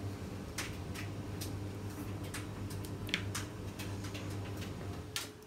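Shortbread star biscuits clicking and tapping as they are lifted from and set on a stacked biscuit tower on a plastic plate: about a dozen light, irregular clicks over a steady low hum.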